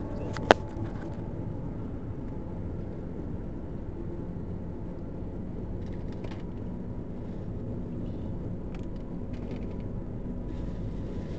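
Steady low road and engine rumble inside the cabin of a car driving on a highway, with one sharp knock about half a second in.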